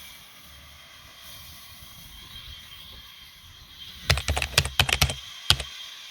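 A quick clatter of sharp knocks, about a dozen within one second about four seconds in, and one more knock half a second later, over a faint steady hiss with a thin high tone.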